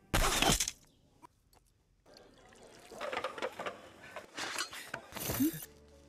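A volley of arrows loosed from drawn bows: one short, sharp whoosh lasting about half a second. After a pause come scattered softer rustles and clinks, with a brief rising tone near the end.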